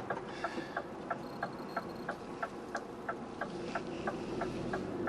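Lorry's turn-signal indicator ticking steadily in the cab, about three ticks a second, over the low hum of the engine.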